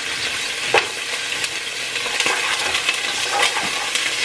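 Chopped onion, green onion and celery, kept in the freezer, frying in hot olive oil in a pot: a steady sizzle with frequent sharp pops of spattering oil. A spoon stirs them near the end.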